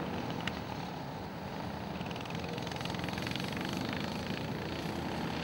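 Racing go-kart engines buzzing steadily as karts run through a corner of the track. A nearer kart's rapid, buzzy engine note comes up about two seconds in.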